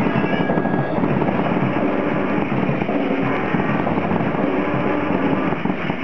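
Live band playing: a drum kit hit in a dense, fast stream of strikes under held electronic keyboard tones.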